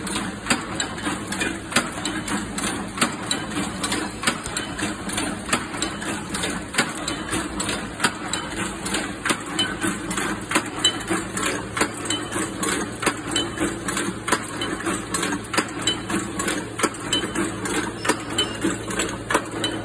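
Automatic steel chain-link making machine running: a steady rhythm of sharp metallic clacks, a couple a second, over a steady motor hum.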